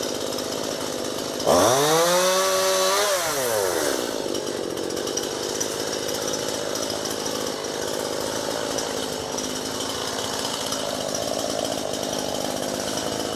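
Chainsaw running, revved up sharply about a second and a half in, held briefly, then dropping back to a steady run.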